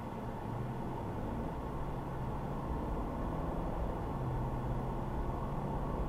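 Steady road and engine noise inside a moving car's cabin, with a low engine hum underneath.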